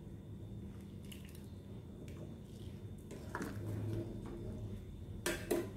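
Metal ladle stirring fish soup in a stainless steel pot: soft liquid swishing and faint scrapes, then two sharp clinks near the end.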